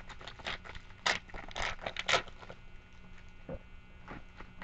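Trading-card packaging being torn open and crinkled by hand: a quick run of sharp crackles in the first two seconds or so, then fainter, sparser rustling, over a faint electrical hum.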